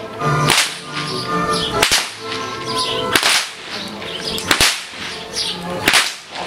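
Hungarian horseman's whip (karikás) cracked five times at a steady pace, about one sharp crack every second and a half, over background music.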